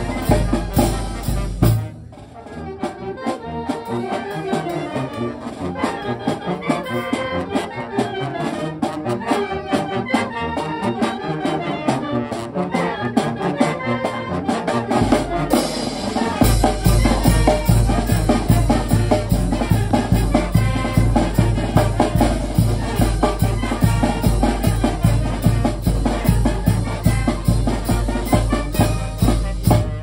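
Oaxacan brass band (banda de viento) playing a march-like tune: trumpets and clarinets over bass drum and cymbals. The music dips briefly about two seconds in, and the low, steady drum beat only comes back in just past the middle.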